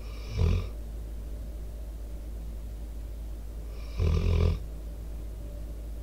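American Staffordshire Terrier/pit bull snoring in his sleep: a short snore just after the start and a longer one about four seconds in, over a steady low hum.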